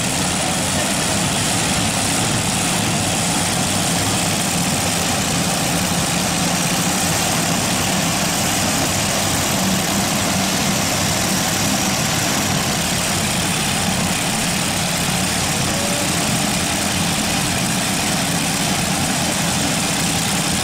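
Modified pulling tractor's engines idling at low revs: a steady, unbroken drone with no revving.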